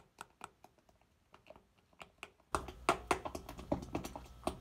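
A metal utensil clicking and scraping against the side of a mixing bowl while stirring a thick barbecue sauce, in a quick run of taps that gets louder about halfway through.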